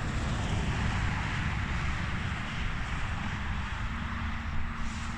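Car engines running at the racetrack, a steady drone with no single pass standing out.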